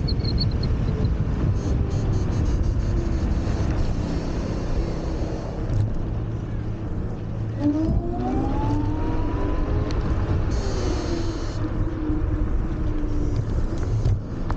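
Wind and road rumble from riding a Wolf Warrior 11+ electric scooter at speed. About eight seconds in, a whine rises in pitch and then eases off over the next few seconds.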